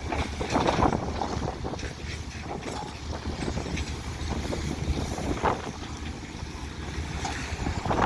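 Excavator diesel engines running with a steady low rumble, with wind buffeting the microphone.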